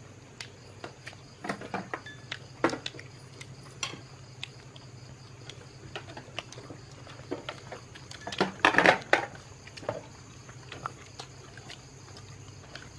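Scattered clicks and clinks of chopsticks and spoons against porcelain bowls and plates during a meal, with a louder clatter a little past halfway, over a steady low hum.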